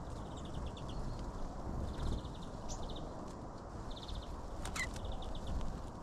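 Small songbirds at a ground feeder giving four or five short, rapid ticking trills, with a few sharp taps about three-quarters of the way through as a bird pecks among the seeds close to the microphone, over a low steady rumble.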